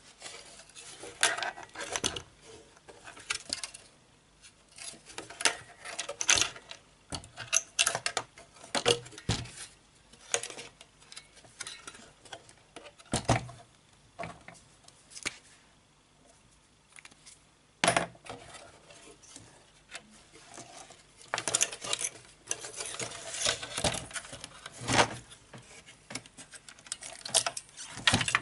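Irregular clicks, taps and scrapes of a computer motherboard being handled, turned over and set down on a workbench, with the sharpest knocks about 18 and 25 seconds in.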